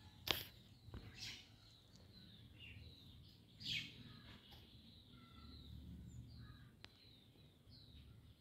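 Faint background birds chirping in short repeated calls. A sharp knock comes about a quarter second in, with smaller knocks soon after and a brief rustle near the middle, as a kitten scuffles with a rat on dry ground and leaves.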